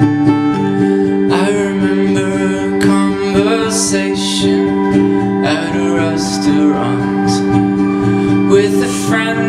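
A man singing to a strummed mahogany acoustic guitar; the guitar plays alone for about the first second and a half before the voice comes in.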